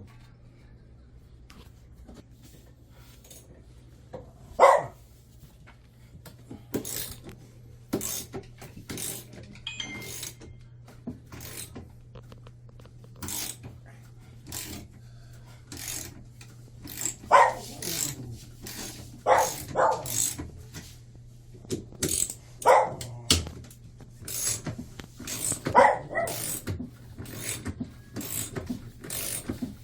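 Irregular clicks, knocks and clanks of hand tools and metal parts as a drum washing machine is taken apart to replace its worn drum bearing, with several louder short sounds now and then over a steady low hum.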